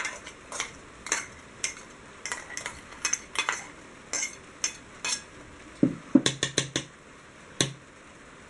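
Metal spoon scraping and clicking against a steel mixer-grinder jar as ground onion and curry-leaf paste is knocked out of it into a bowl. A quick run of louder knocks comes about six seconds in, followed by one more a little later.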